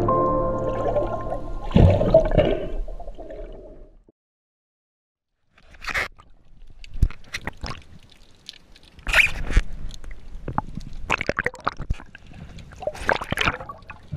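Ambient soundtrack music fading out over the first few seconds, a short silence, then underwater sound picked up by the camera: irregular gurgling and sloshing of water with scattered knocks.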